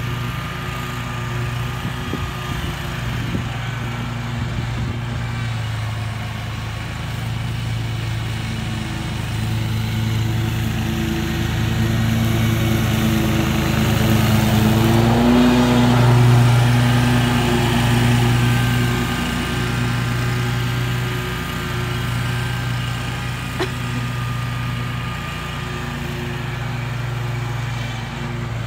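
Scag Tiger Cat II zero-turn riding mower running at steady mowing speed, its engine and cutting deck growing louder as it passes close by about halfway through, then fading as it moves off down the slope.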